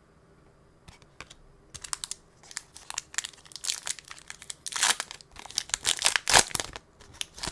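Foil wrapper of an Upper Deck hockey card pack being torn open and crinkled by hand: a run of sharp crackles starting a couple of seconds in, loudest near the end.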